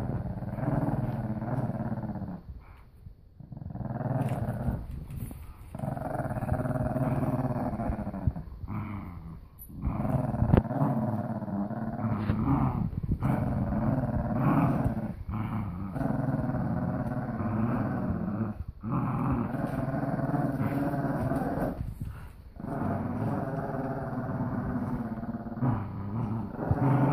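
Dogs growling in play while tugging on a plush toy, in long rough growls of one to three seconds with short breaks between them. A single sharp knock about ten seconds in.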